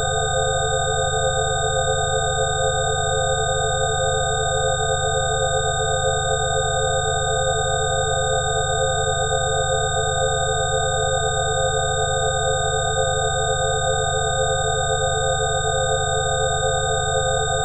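Synthesized healing-frequency tones: several steady pure tones held together, a few of the middle ones pulsing rapidly, over a low steady drone.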